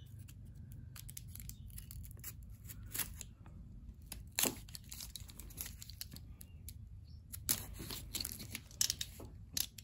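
Clear packing tape on a small cardboard mailer being slit with a utility knife and torn away, with irregular crackles and sharp clicks.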